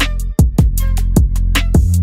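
Background music with a steady electronic drum beat and heavy bass.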